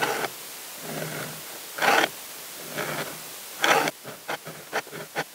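Knife blade drawn through a Fiskars Xsharp sharpener's ceramic grinding wheel in knife mode, a gritty scrape on each pass. Three slow passes about two seconds apart, then, about four seconds in, a run of much quicker, shorter strokes.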